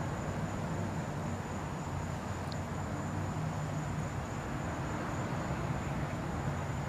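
Steady outdoor night background noise: a low hum under an even hiss, with a thin steady high-pitched tone and one brief high blip about two and a half seconds in.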